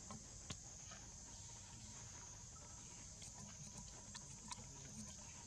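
Faint, steady high-pitched drone of insects, cicadas or crickets, with a few soft scattered clicks.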